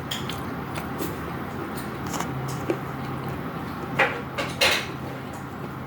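Eating utensils clinking and scraping on a plate during a meal of rice, with two louder scrapes a little after four seconds in. A steady low hum runs underneath.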